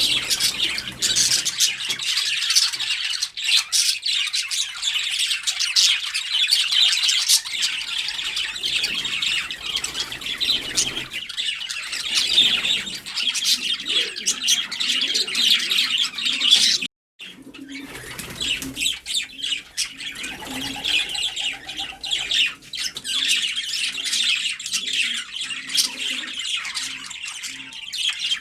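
Many birds chirping and squawking together in a dense, continuous chatter, broken once by a sudden brief cut to silence a little past the middle.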